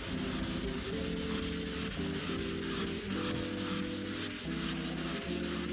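Hand sanding of body putty on a car door panel with an abrasive pad: a dry rasping rub in continuous back-and-forth strokes.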